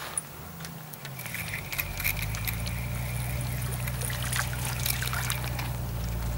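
Crucian carp splashing and skittering at the pond's surface as it is reeled in on a float rod. A steady low rumble of wind on the microphone sets in about two seconds in.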